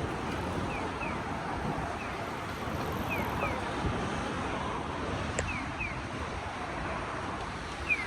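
Steady hum of city street traffic, with pairs of short, high, falling chirps repeating every couple of seconds.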